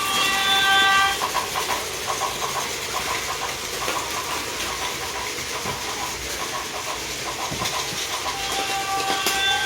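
A Plarail toy Tokaido Line train's built-in sound unit plays a recorded train running sound, the clickety-clack of wheels over rail joints. A steady electronic tone sounds for about the first second and comes back near the end.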